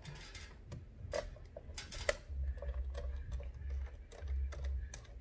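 Scattered light clicks and taps of a small screwdriver and fingers on a laptop's plastic bottom case while its back screws are being taken out, over a low hum that comes and goes.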